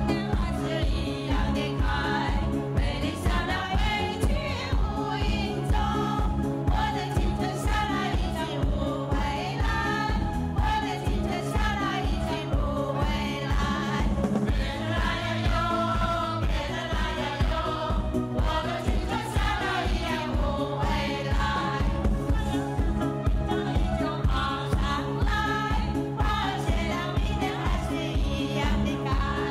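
A group of men and women singing a song together into microphones over amplified backing music with a steady beat.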